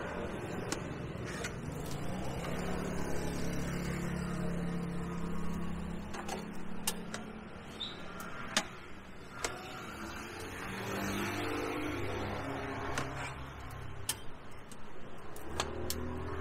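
A motor running with a low hum that shifts up and down in pitch, with sharp light clicks and knocks scattered through.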